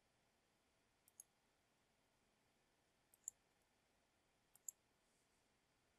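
Computer mouse button clicked three times, each a quick double tick of press and release, about a second and a half apart, against near silence.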